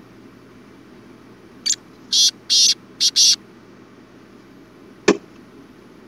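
Black francolin calling: a short note followed by four loud notes in quick succession, the phrase lasting under two seconds. A single sharp click about five seconds in.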